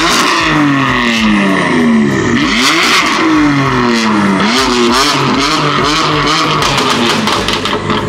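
BMW M4 convertible's twin-turbo straight-six revved several times, the pitch climbing quickly and falling away more slowly, with crackling pops from the exhaust as the revs drop.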